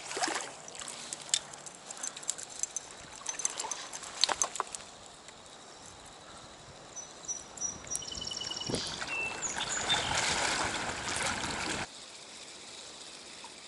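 Stream water trickling, with irregular small splashes and clicks as a little brook trout is played and landed. A songbird chirps briefly about seven seconds in. A louder rush of water from about nine seconds in cuts off suddenly near the end.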